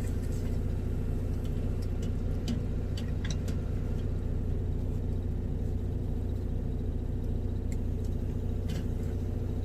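Steady low hum of an idling engine, with a few faint clicks over it.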